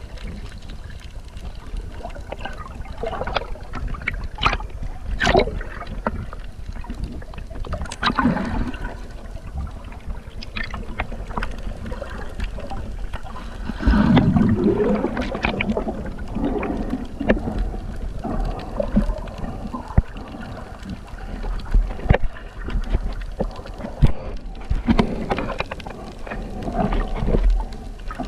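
Water splashing and sloshing in irregular surges over a steady low rumble.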